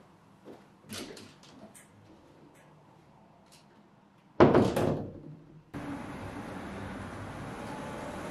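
Footsteps on a hard floor, then a door slams shut about four and a half seconds in, the loudest sound, ringing briefly in the room. After it comes a steady outdoor background hiss.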